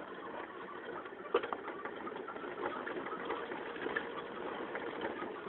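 Car engine running, heard from inside the cabin as the car drives over rough grass, with scattered rattles and a sharp knock about a second in.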